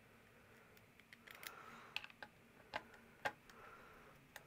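Faint, scattered clicks and taps of a screwdriver working a contactor's terminal screws as wires are landed, with the sharpest clicks between about two and three and a half seconds in.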